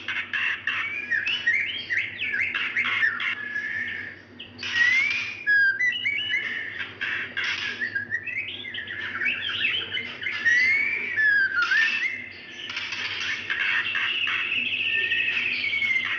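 Female white-rumped shama (murai batu) calling without a break: a rapid run of whistled notes sliding up and down, mixed with a few short harsh notes. It is a female's call to a male, the kind used as a lure to set male shamas singing.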